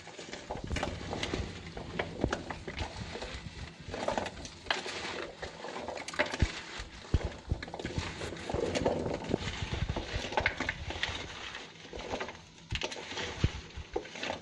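Chopped potatoes, carrots and onions being tossed and mixed by hand with salt and spices, the pieces knocking and rustling against each other and the container in quick, irregular clatters.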